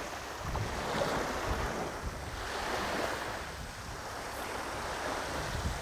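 Small bay waves washing on a sandy shore, a hiss that swells and fades, with wind gusting on the microphone.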